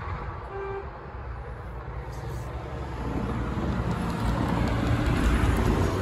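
A car approaching on the road: engine and tyre noise that builds steadily louder from about halfway through.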